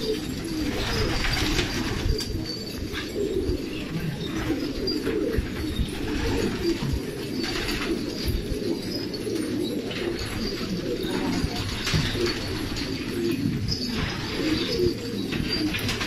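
A flock of domestic pigeons cooing, many calls overlapping in a steady low warble with no pause.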